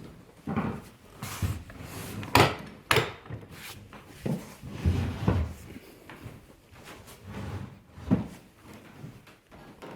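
Folding sofa bed being handled: its frame and cushions give a series of knocks, clacks and thumps, with two sharp clacks close together about two and a half seconds in.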